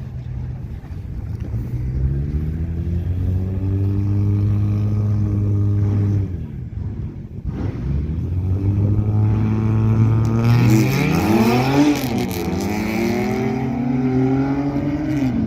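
Car engine at wide-open throttle on a drag strip pass, its pitch climbing steadily, falling off and dropping in level about six seconds in, then climbing again. From about ten seconds in, a second engine note sweeps up and down across it with loud hiss for a couple of seconds.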